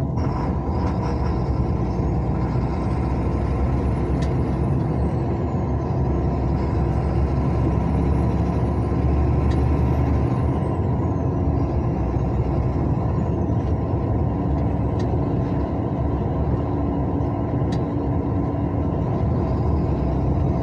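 A car driving at highway speed: a steady rumble of engine and tyre noise on the asphalt, with a faint high whistle that rises and falls in pitch through the middle.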